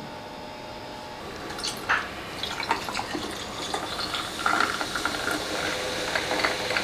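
A fizzy drink being poured into a glass: the splashing stream with many small pops and crackles of fizz, busier from about a second and a half in.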